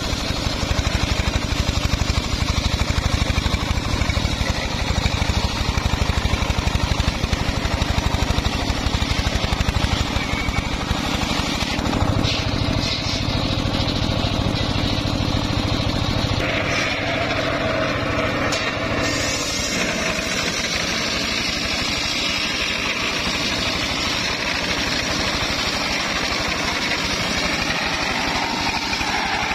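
Homemade circular sawmill running, its engine going steadily while the large saw blade cuts lengthwise through a mahogany log. The tone shifts about halfway through.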